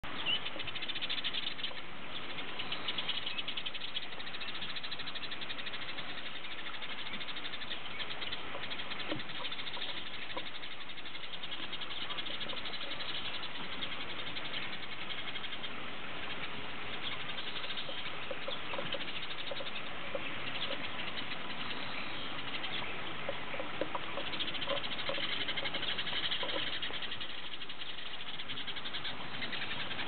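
A flock of house sparrows chirping together: a dense, unbroken stream of short overlapping chirps.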